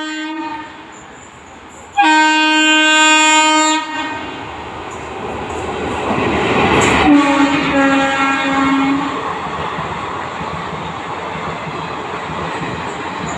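Sapthagiri Express train horn sounding one long blast about two seconds in. The train's running noise then swells, a second, lower-pitched blast sounds a few seconds later, and steady wheel clatter follows.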